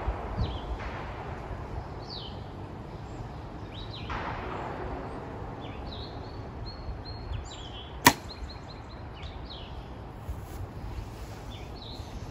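A compound bow is shot once about two-thirds of the way in, giving a single sharp snap as the string is released and the arrow flies.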